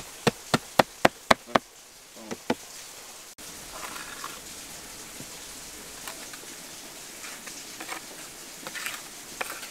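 A quick run of about seven sharp taps on brick in the first second and a half: bricks being knocked down into their mortar bed against the arch form of a brick oven. Then a steady outdoor hiss with faint scattered clicks of trowel and mortar on brick.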